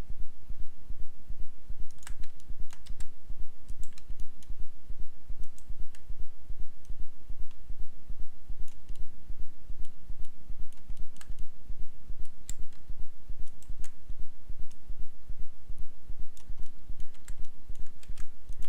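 Scattered computer keyboard and mouse clicks from someone working software shortcuts. Under them runs a steady low throbbing hum that pulses a few times a second.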